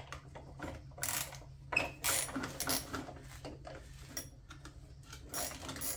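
Ratchet wrench clicking and hand tools clattering irregularly as bolts holding the ATV's plastic body panels are worked loose.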